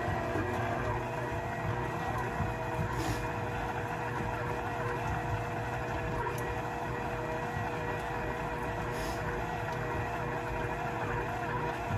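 Electric mixer with beaters running steadily on its lowest speed, a constant motor hum as it mixes the batter.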